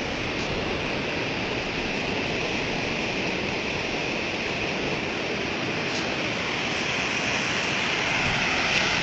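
Floodwater of a wadi in spate rushing past in a steady, even roar, growing slightly louder near the end.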